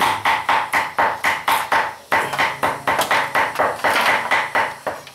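A knife chopping rapidly on a cutting board, mincing, about four strokes a second, each with a short ringing tone, and a brief pause about two seconds in.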